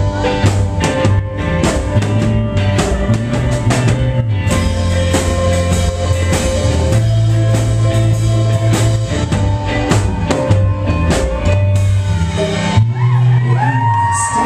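A live rock band playing loudly: drum kit and hand drums over a heavy bass line and electric guitars. Near the end the playing shifts to sliding high notes.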